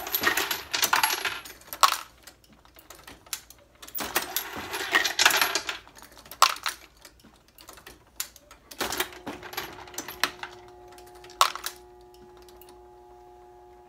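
Brass 9mm cases clinking and rattling as they are handled at a progressive reloading press, with scattered sharp metallic clicks. Two longer rattles come in the first second and again about four to five seconds in. About nine seconds in a steady hum with a fixed tone starts, and it stops suddenly at the end.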